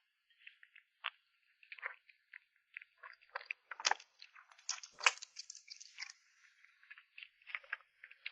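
A kitten chewing and crunching food close to the microphone: an irregular run of short crunches and smacks, loudest about four and five seconds in.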